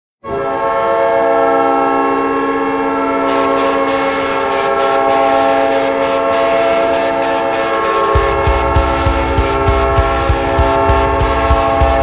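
Winnipeg Jets arena goal horn, a deep air horn sounding a chord in one long continuous blast. About three seconds in, crowd cheering rises under it, and around eight seconds in the heavy drumbeat of the goal song starts beneath the horn.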